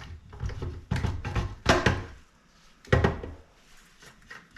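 Knocks and clunks of parts being handled and set into the opened housing of a KitchenAid stand mixer during reassembly. There are a few sudden knocks, the loudest a little under two seconds in and another about three seconds in.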